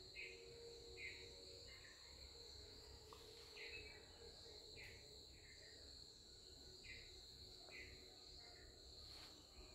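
Near silence: faint background noise with a steady high whine and soft short chirps recurring about once a second.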